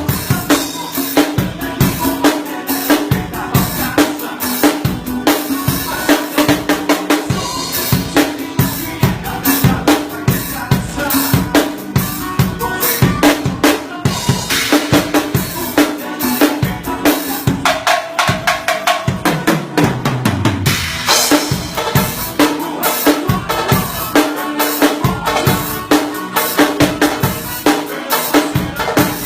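Drum kit played in a steady, fast groove of bass drum, snare and rimshots over instrumental music, with a low sliding tone falling in pitch about two-thirds of the way through.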